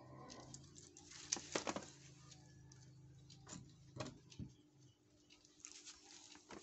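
Handling noise from an MDF wooden wall clock being moved and hung on a wall: irregular light clicks and taps, most of them about a second in and again around four seconds in, over a faint steady hum.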